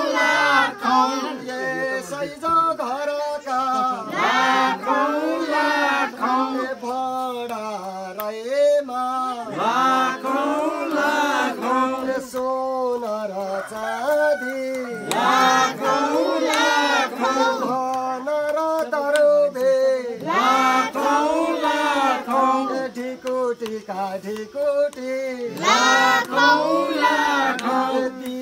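A mixed group of voices singing a Deusi song, the Nepali Tihar house-to-house carol, in phrases that swell afresh about every five seconds.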